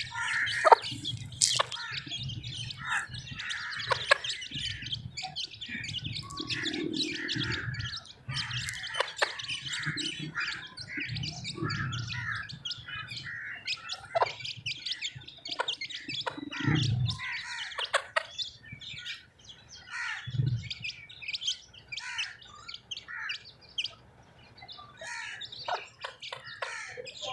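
Domestic chicks peeping continuously, many short high chirps overlapping, with a low rumble underneath in stretches and a couple of brief low thumps in the second half.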